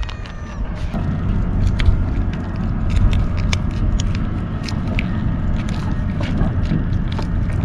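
A low wind rumble on the microphone, with scattered sharp clicks and crinkles from cat-food pouches being squeezed out by hand.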